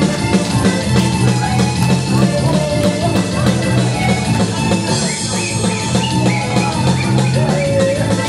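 Loud dance music with a drum kit keeping a steady beat of about two strokes a second, under a melodic line.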